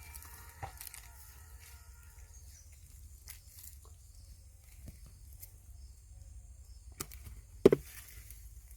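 Sparse soft clicks and scrapes over a low steady rumble, with a sharp click about seven seconds in and a louder thump just after it.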